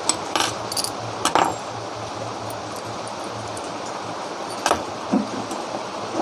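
A few light metallic clinks and taps from ceiling fan parts and tools being handled: several in the first second and a half, then two more near the end, over a steady low hum.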